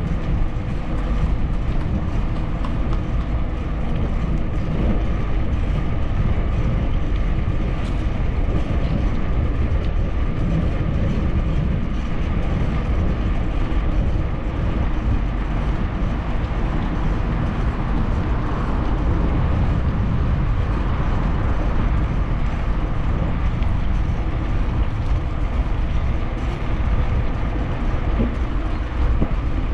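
Steady low rumble of wind buffeting the microphone, mixed with bicycle tyres rolling on a paved bike path, as heard from a camera on a moving bicycle.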